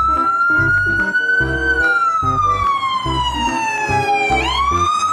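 Ambulance siren wailing: a long, slow rise and fall in pitch, sweeping quickly up again near the end. A steady music beat plays underneath.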